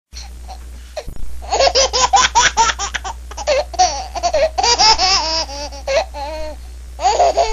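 High-pitched laughter in rapid repeated bursts of ha-ha-ha. It starts about a second and a half in, runs for several seconds, eases off, then breaks out again near the end.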